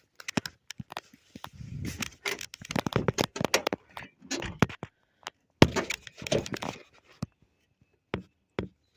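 Irregular clattering knocks and rattles of hard objects, in two busier stretches, with the loudest sharp knock about five and a half seconds in.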